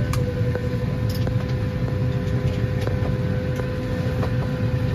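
Steady low hum of an airliner cabin's ventilation while parked for boarding, with a steady mid-pitched tone over it. Scattered light clicks and knocks of luggage and overhead bins.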